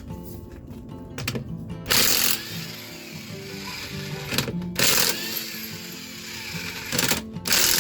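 Background music, with three short bursts of ratchet wrench clicking about two, five and seven seconds in.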